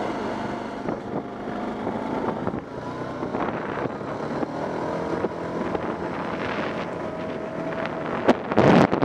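ATV engine running steadily while riding along a gravel track. Near the end, wind buffets the microphone loudly.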